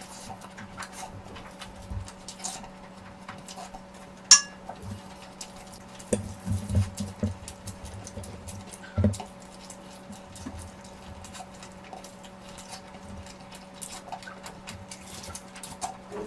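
Close-miked eating sounds: chewing and mouth sounds from someone eating curry and rice, in short clusters, with one sharp ringing clink of a dish or utensil about four seconds in. A faint steady hum runs underneath.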